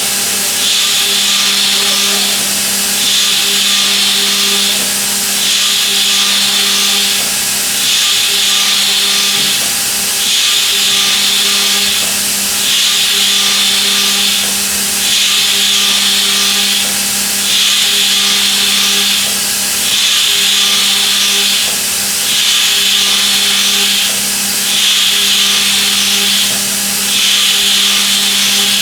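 Milling machine cutting with a high-feed cutter: a steady machine hum, under a hissing cutting noise that comes and goes regularly about every two and a half seconds.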